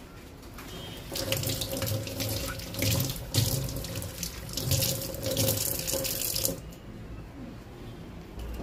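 Kitchen tap running into a stainless-steel sink as green chillies are rinsed under the stream by hand. The water comes on about a second in and is shut off after about five and a half seconds.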